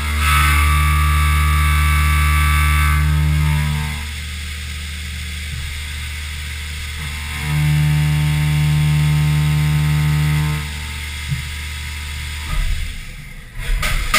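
A Haas VF-3SS CNC vertical mill cuts aluminum with an end mill under flood coolant. Over the steady hum of spindle and coolant come two louder cutting passes, each about three seconds long, carrying a steady tone. Near the end the sound turns uneven as the spindle lifts off the work.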